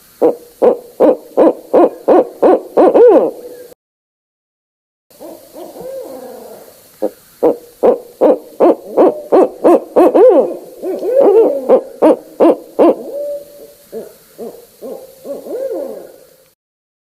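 Barred owls calling in two runs of rapid hoots, about three a second, split by a short silent gap. In the second, longer run the hoots waver up and down in pitch and overlap in the middle, then grow fainter near the end.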